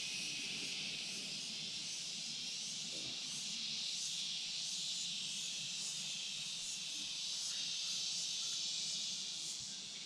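Steady high-pitched insect chorus in forest, with a faint regular pulsing in its top register.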